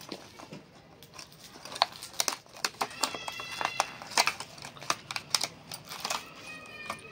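Hard plastic lure packs being handled in a cardboard box: irregular sharp clicks and taps of plastic. A brief high-pitched squeak comes about three seconds in and again near the end.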